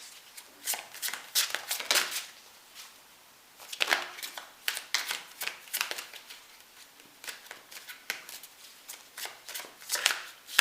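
Tarot cards being shuffled by hand: a run of quick, irregular rustles and slaps of card on card, with a short lull about two and a half seconds in.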